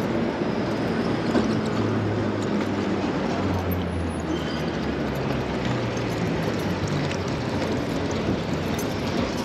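Rush-hour city traffic heard from a moving bicycle: a steady rush of wind and road noise, with a motor vehicle's low engine hum from about two seconds in until about seven seconds in.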